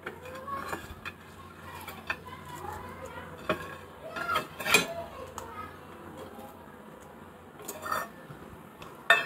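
Scattered light clinks and knocks of kitchen utensils and metal dishes being handled, the sharpest about halfway through and just before the end.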